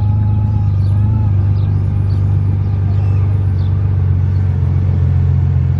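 Motorcycle engine running steadily at low speed, a deep even drone heard from the rider's seat behind the windshield.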